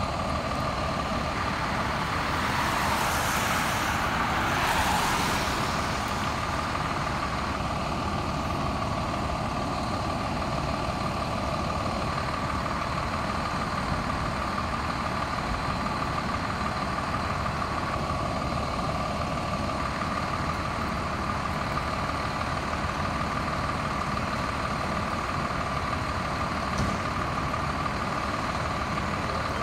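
Fire truck's diesel engine idling steadily with its rumble, a steady high tone running over it.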